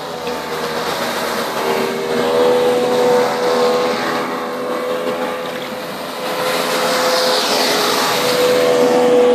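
Mercury 40 hp two-stroke outboard motor running on a mini boat, its note holding a steady pitch with slight wavers. It gets louder about two seconds in and again near the end, and a rushing hiss swells over it a few seconds before the end.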